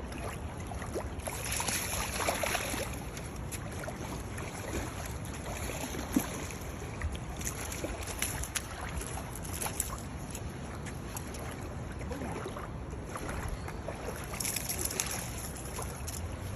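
Steady wind rumble on the microphone over water noise around a small fishing boat, with scattered light knocks and clicks.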